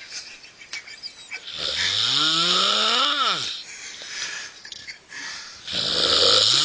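Loud snoring. About a second and a half in, a short rasp turns into a long moaning tone that rises in pitch and then drops away, over a hiss. Near the end another rasping breath begins.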